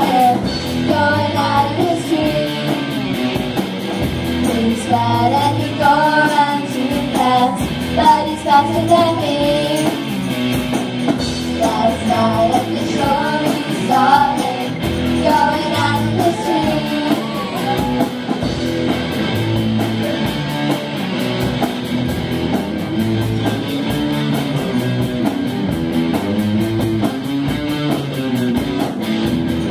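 A young rock band playing live: several girls singing together into microphones over electric guitars, bass guitar and drums.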